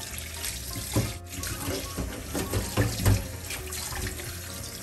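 Kitchen tap running into a stainless steel bowl in the sink while hands swish and rinse pieces of tilapia in the water, with a few sharper splashes among the steady flow.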